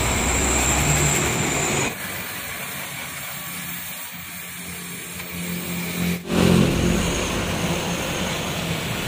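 Oxy-fuel gas welding torch flame hissing steadily while a filler rod is melted into rusted-through steel. The sound drops abruptly about two seconds in and comes back up about six seconds in.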